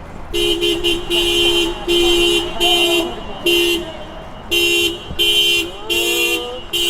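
Car horn honking over and over, about nine blasts, some short and some held for half a second or more, with a brief pause near the middle.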